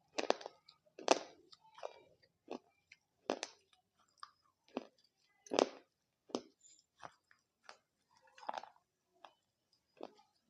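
Dahi papdi chaat chewed close to the microphone: the crisp fried papdi wafers crunch in sharp, irregular bites, roughly one a second.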